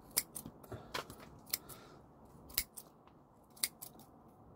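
A pair of scissors snipping thin, spindly roots off a dahlia tuber clump: about a dozen sharp snips at irregular intervals, some in quick pairs.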